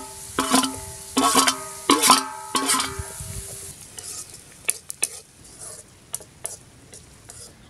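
A steel ladle knocks against a steel plate and a metal kadai, about five ringing clangs in the first three seconds as chopped onions and green chilli go into the pan. After that the onions sizzle in the hot pan, with light scraping clicks of the ladle as they are stirred.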